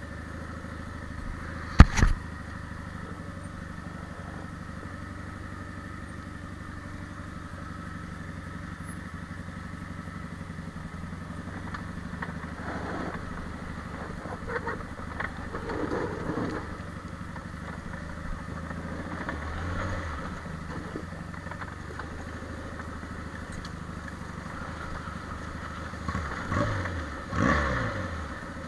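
Quad bike (ATV) engine running steadily over a rough dirt track, with one sharp knock about two seconds in. The engine revs up a couple of times near the end.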